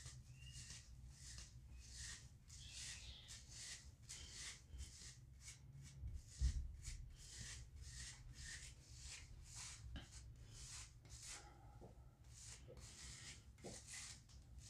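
Hairbrush strokes sweeping hair up toward the crown: a faint, regular swishing, about two strokes a second. A single low thump sounds about six and a half seconds in.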